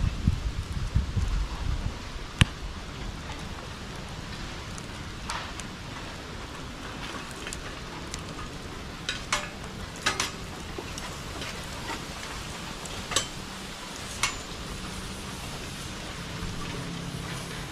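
Bonfire burning with a steady hissing crackle and about half a dozen sharp pops, the loudest about two and a half seconds in. A low rumbling runs through the first couple of seconds.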